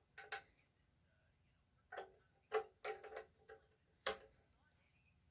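Batteries and a clip being fitted into the bench grinder's plastic LED-light battery compartment: a scattered series of small clicks and taps, the sharpest about four seconds in.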